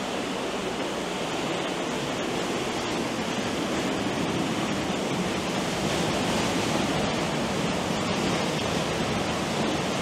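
A waterfall in heavy flood pouring down inside a rock chamber, a steady, loud rush of falling water and spray.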